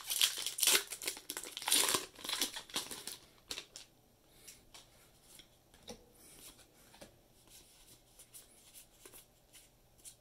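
Foil trading-card booster wrapper crinkling loudly as it is torn open over the first three seconds or so. After that come quieter scattered clicks and rustles of the cards being handled and slid through.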